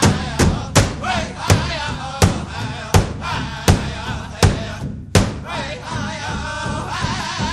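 Background music with a steady beat of sharp percussive strikes under a melodic line.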